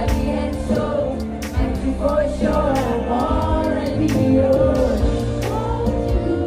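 Live band music with drums, with many voices singing along loudly. Some singers are close to the microphone.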